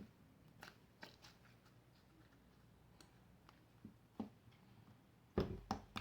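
Scattered light clicks and taps of things being handled during slime-making, with a louder cluster of four or five knocks near the end.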